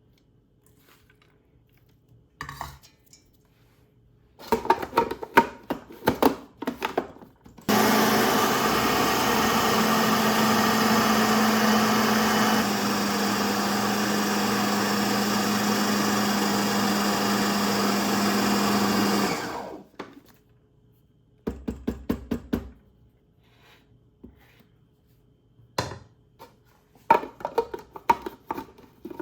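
Electric kitchen grinder running steadily for about twelve seconds, grinding the boiled dal, chicken and spices into shami kebab mixture; its level drops slightly partway through. Clattering knocks come before and after it.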